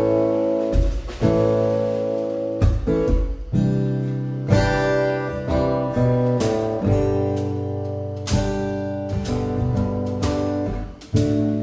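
Acoustic guitar playing a slow chord intro, each chord struck and left to ring before the next.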